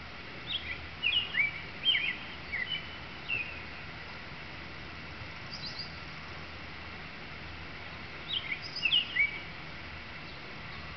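Male American robin singing: two bouts of short, clear whistled phrases, the first about half a second in and the second near the end, with a few faint high notes between them. A steady background hiss runs underneath.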